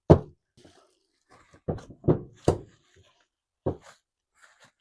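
About five irregular knocks and thuds, the first the loudest, as engine mount parts and their packaging are handled and set down.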